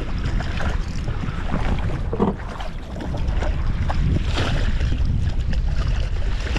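Wind rumbling on the microphone over lapping water, with a few short splashes from a hooked lake trout thrashing at the surface beside a kayak as it is netted.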